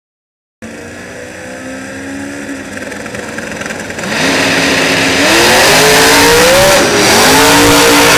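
Two drag cars launching off the start line at full throttle after a brief silence. The engines run at the line, then jump sharply in loudness about four seconds in and climb in pitch, dip briefly at a gear change, and hold high as the cars run down the strip.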